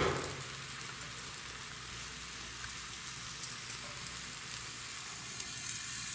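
Thin blin (Russian pancake) batter sizzling steadily in a hot frying pan as it sets and bubbles.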